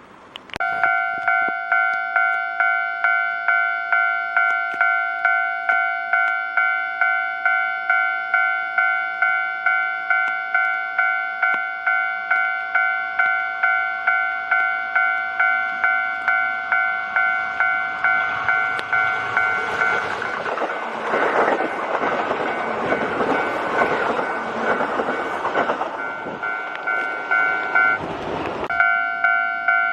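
Japanese level-crossing warning bell starts about half a second in and rings steadily with electronic dings, about one and a half a second. From about 19 to 28 seconds a Kintetsu Osaka Line train passes over the crossing, and its rumble and wheel clatter partly cover the bell.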